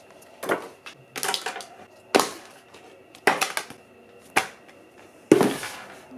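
A series of sharp clicks and clacks, about six, spaced roughly a second apart, each ringing briefly.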